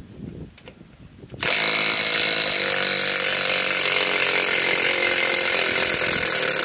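Flex FX1451 cordless mid-torque impact wrench running in reverse, backing out a 6-inch lag screw. It starts about a second and a half in and hammers steadily from there.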